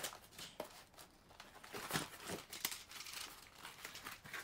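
Cardboard packaging and paper being handled as a toy is unpacked: faint, scattered rustles with a few light knocks of the cardboard insert.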